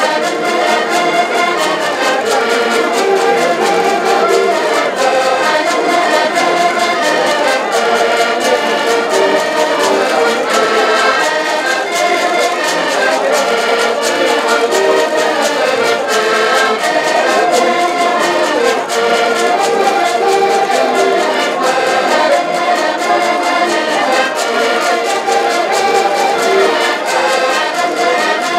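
Several diatonic button accordions playing a lively folk tune together in harmony, over a steady percussion beat.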